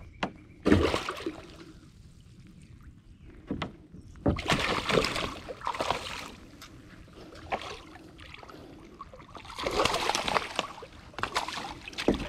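Water splashing and sloshing around a fishing kayak in several irregular bursts.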